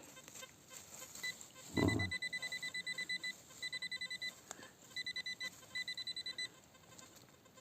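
Metal detector beeping in fast runs of high, even pips, several runs broken by short gaps, as it passes over a buried metal target. A short low thump sounds near the start of the beeping.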